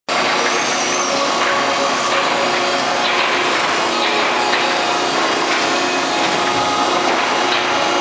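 Selco two-ram baler system running, its steel slat conveyor carrying loose waste paper and cardboard up to the baler: a loud, steady mechanical drone with a steady hum and light, irregular clatter.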